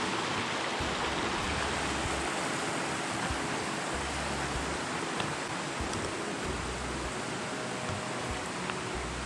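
Steady rush of a mountain creek flowing over rocks.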